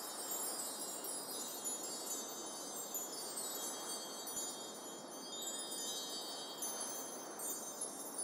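Chimes tinkling, many high ringing tones overlapping, over a steady soft rushing noise.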